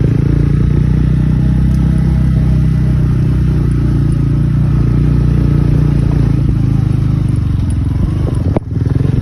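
TVS Ronin 225cc single-cylinder motorcycle engine running steadily at low speed while being ridden over a rough gravel track. The sound briefly drops out near the end.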